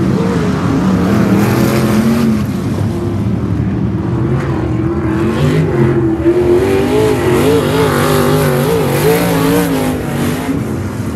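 Several 305 sprint cars' V8 engines running on the track, overlapping, each one's pitch rising and falling as the cars circle the oval.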